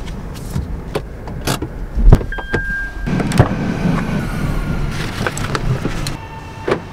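A hatchback's boot being opened by hand: a string of clicks and knocks from the tailgate release and latch, then a denser rustling and clatter of things being moved in the boot from about three seconds in. A brief high tone sounds about two seconds in.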